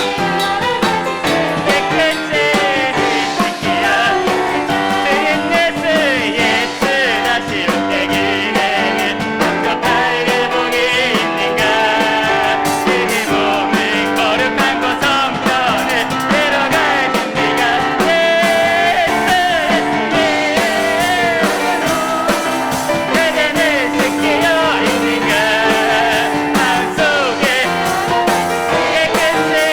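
Live church praise band playing a worship song, with piano, drums and vocalists singing.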